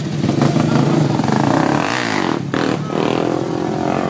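Four-wheeler (ATV) and dirt bike engines running and revving together, with the engine pitch sweeping up and down about halfway through as one of them speeds up.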